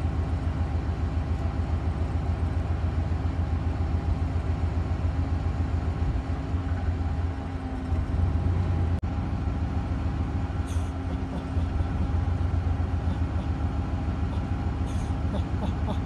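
Steady low rumble of an idling engine, with a few faint steady tones above it and a single sharp click about halfway through.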